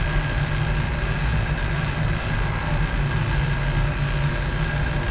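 Laboratory machinery running with a steady low drone and a fainter even hiss above it.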